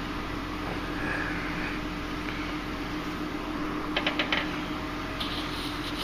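Steady mechanical hum with a quick run of sharp clicks about four seconds in from a Honda Odyssey's power sliding door latch as the door tries to cinch shut.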